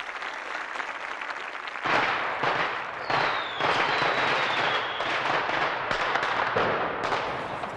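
A fireworks display: dense crackling and bangs that get louder about two seconds in, with a falling whistle about three seconds in.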